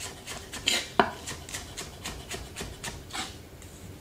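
Large kitchen knife chopping spring onions on a wooden chopping board: a steady run of quick knocks, about four a second, with a couple of louder strokes about a second in.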